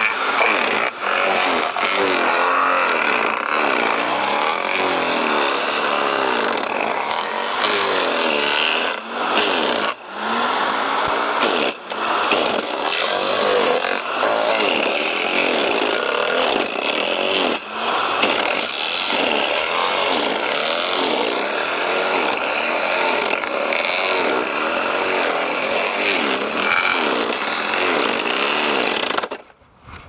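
Garden shredder running and chewing up a long tree branch fed into its hopper. Its pitch keeps sagging and recovering as the wood bites. The sound drops away for about a second near the end.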